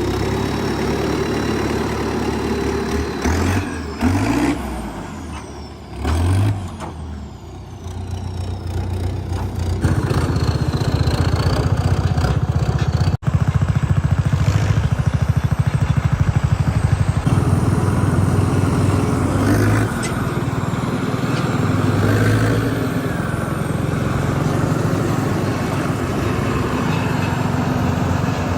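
Sonalika RX 60 tractor's diesel engine running as it is driven with a cart hitched behind. It revs up briefly a few times in the first several seconds, then runs steadily.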